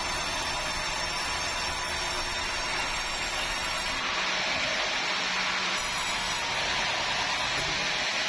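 Sawmill saw running steadily through bengkirai hardwood: an even, unbroken hiss of machine and cutting noise.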